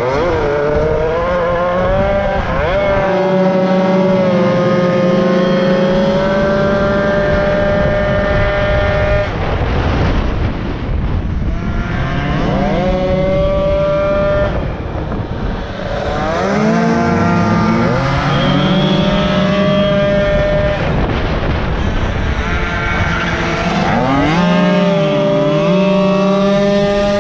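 Racing moped's small two-stroke engine at high revs, its whine climbing steeply in pitch, holding steady on the straights, then dropping and climbing again several times as it accelerates out of the corners.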